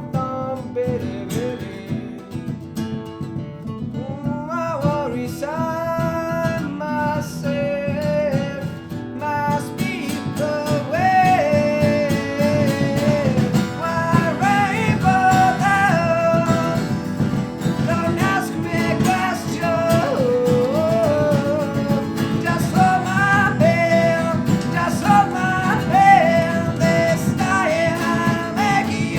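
A small acoustic band playing live: strummed acoustic guitars with bass and hand percussion under a sliding melody line. The playing thickens and grows louder about ten seconds in, when the percussion comes in more strongly.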